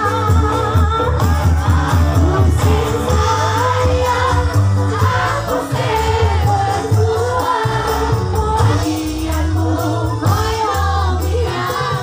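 Live band music through a loud PA, with a woman singing the lead over a heavy, steady bass.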